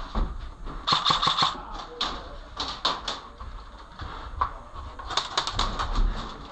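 Airsoft guns firing: a quick burst of about half a dozen shots about a second in, a few single shots, then another rapid burst a little after five seconds.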